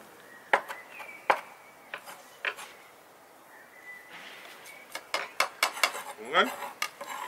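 Chef's knife knocking on a wooden cutting board while chopping cilantro: four single knocks spaced about half a second apart, then a quicker run of light clicks and clinks about five seconds in.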